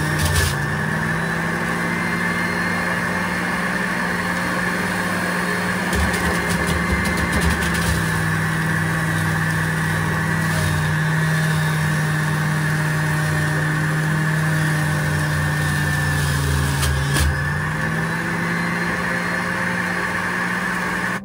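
Electric centrifugal juicer motor running with a steady hum while fruit is juiced. It gets rougher about six to eight seconds in, and its pitch sags briefly about sixteen seconds in as the motor takes load.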